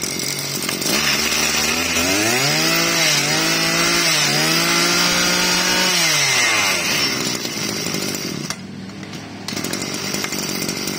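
Maruyama 20 cc two-stroke brush cutter engine, revved up twice by hand at the throttle. Each time it holds high speed for a couple of seconds, then drops back to idle about seven seconds in.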